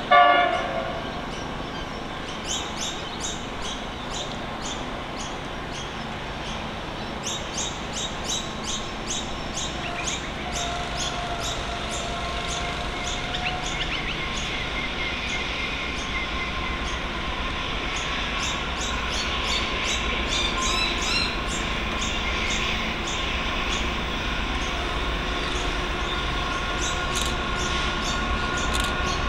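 Freight train hauled by NR class diesel-electric locomotives approaching from the distance, a low rumble and steady hum growing slowly louder. A brief loud horn blast sounds at the very start, and birds chirp repeatedly.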